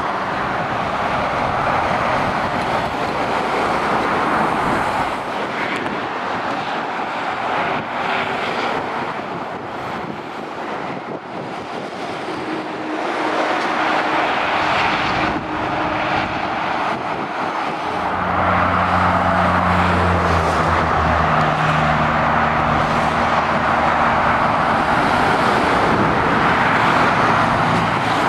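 Motorway traffic passing below, mostly lorries with some cars: steady tyre noise that swells and eases as each vehicle goes by. From about two-thirds of the way through, a lorry's diesel engine adds a low, steady drone as it approaches.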